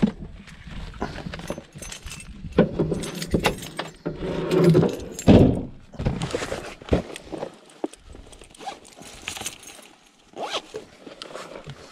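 Fishing gear and bags being handled and packed by hand: rustling, clinks and scattered knocks, with a louder thump about five seconds in.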